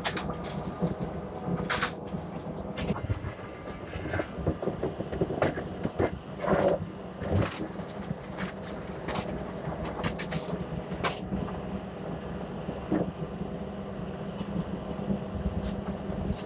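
A heavy diesel machine's engine running steadily under irregular knocks and crunches, typical of demolition work.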